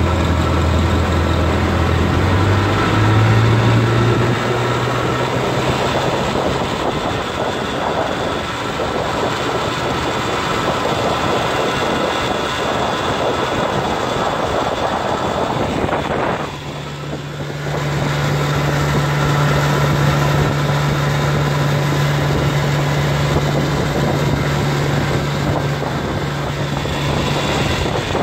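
Freshly tuned-up 1959 Evinrude Fastwin 18 hp two-cylinder two-stroke outboard running the boat at speed. Its pitch rises about two seconds in as it is throttled up, dips briefly about two-thirds of the way through, then holds steady at a higher pitch.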